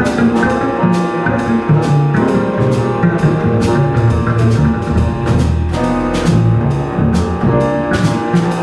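Live small-group jazz: acoustic grand piano, plucked upright double bass and a Gretsch drum kit playing together, with cymbal strokes keeping time about twice a second.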